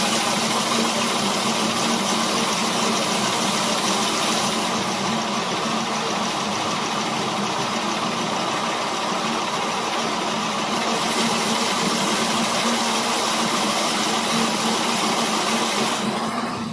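A loud, steady machine noise with a low hum underneath. It starts abruptly, sounds a little duller in the middle for several seconds, and cuts off near the end.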